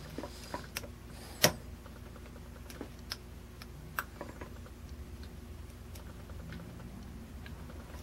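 Small metallic clicks and ticks of a hook pick and tension wrench working the pin stack of a Chubb padlock, scattered and irregular, the loudest about a second and a half in. The picker takes the lock for spool-pinned and keeps oversetting the pins.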